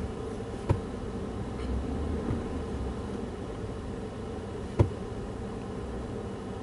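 Pickup truck engine running as the truck backs slowly, heard as a steady hum inside the cab, with two sharp clicks, about a second in and again near five seconds.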